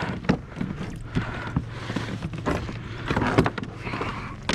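Irregular knocks, clicks and rattles as a freshly netted redfish is handled and unhooked on a kayak, with a few louder knocks near the end.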